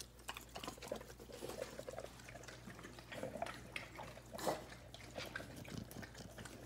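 Shar-Pei dogs licking and smacking at peanut butter on a spoon: faint, irregular wet tongue clicks and lip smacks, with one louder smack about four and a half seconds in.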